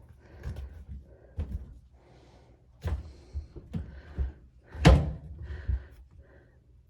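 A series of knocks and thuds from handling a front-loading washing machine's door and its torn rubber door seal, the loudest about five seconds in.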